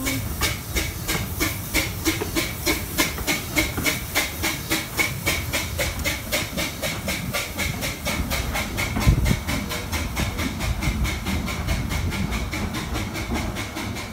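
Narrow-gauge steam locomotive chuffing as it pulls away, its exhaust beats quick and even over a steady hiss of steam. A single low thump about nine seconds in.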